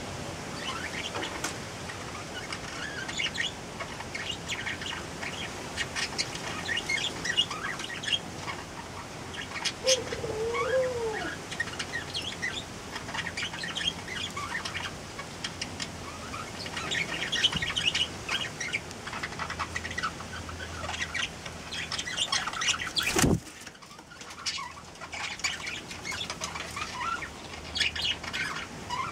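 Aviary bird sounds: a steady scatter of short chirps and clicks, with one brief low warbling call about ten seconds in and a single sharp knock about two-thirds of the way through.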